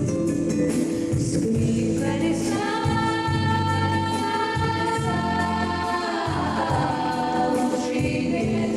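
Song with a wordless sung line, choir-like, held on long notes over guitar and bass. It comes in about two seconds in and slides down in pitch near the end.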